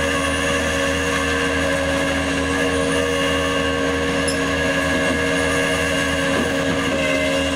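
Rollback tow truck's engine running steadily while its winch drones, drawing a car up the tilted flatbed.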